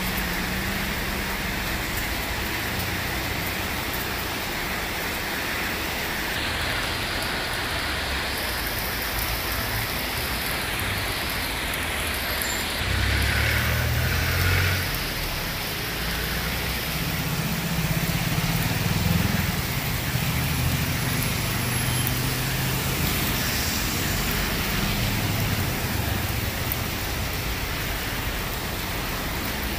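Heavy rain falling on a road with a steady hiss, as cars drive past through the wet; the engine rumble and tyre spray swell a few times, most strongly around the middle.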